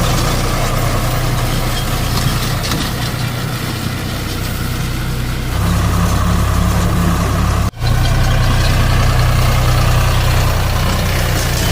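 Deutz Fahr 4050E tractor's three-cylinder diesel engine running steadily. It gets louder about halfway through, and the sound breaks off for an instant about two-thirds of the way in.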